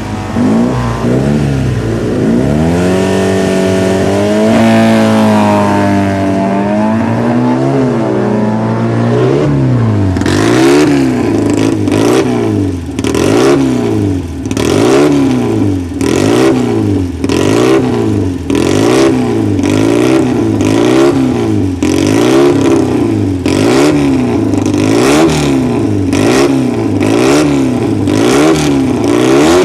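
Fiat 500 engine revving: its pitch rises and falls slowly for about the first ten seconds, then the throttle is blipped over and over, the revs climbing and dropping about once a second.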